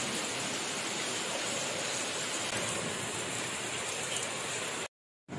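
Steady rain falling, splashing into puddles on wet paving; it cuts off suddenly near the end.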